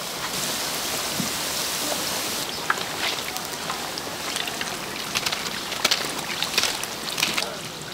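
Battered food deep-frying in hot oil: a steady sizzle with many sharp pops and crackles through the second half.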